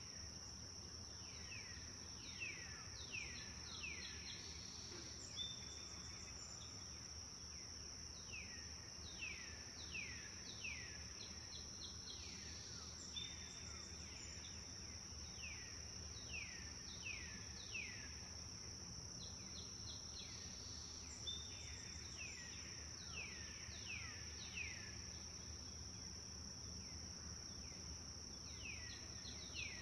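Birds calling in quick runs of downward-sliding whistled notes, repeated in bursts every few seconds, over a steady high-pitched insect drone.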